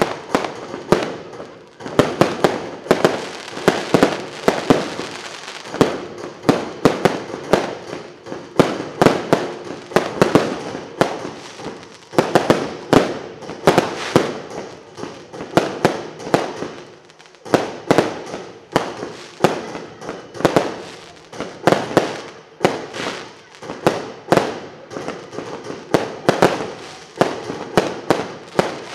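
Consumer fireworks batteries firing shot after shot: a rapid run of sharp bangs from launches and bursting shells, several a second, with a brief pause a little past halfway.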